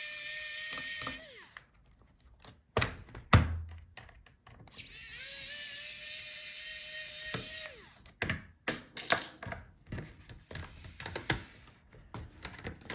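Electric screwdriver backing out laptop hinge screws: its motor whine stops about a second in, then runs again for about two and a half seconds, dropping in pitch each time it stops. In between and afterwards come sharp clicks and knocks of the screws and parts being handled, the loudest about three seconds in.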